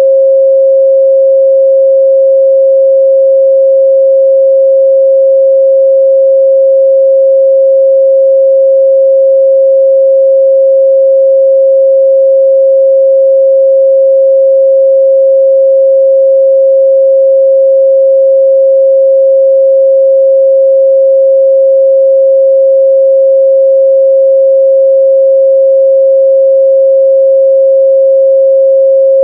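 Steady, loud 538 Hz sine-wave test tone, a single pure pitch held without change.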